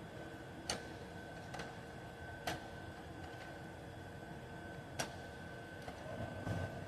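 Sharp clicks at irregular intervals, one to two and a half seconds apart, over a faint steady high whine.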